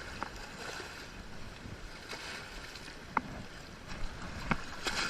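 Steady outdoor wind and water noise, with a few sharp clicks or knocks.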